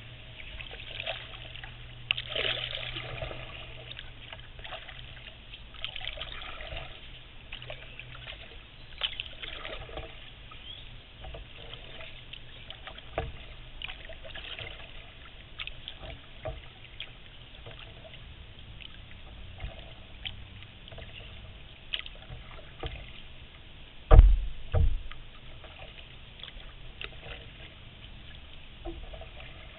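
Kayak paddle dipping into calm water, with splashes and drips off the blades every few seconds. About three-quarters of the way through come two loud, dull thumps half a second apart.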